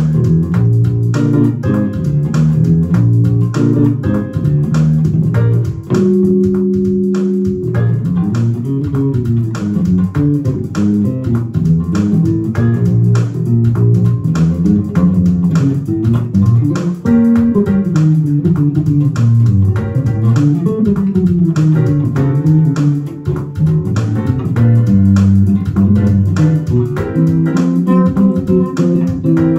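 Mike Lull Precision-style electric bass played fingerstyle, a funk tune's melody and bass line played together on the one instrument, with a held chord about six seconds in.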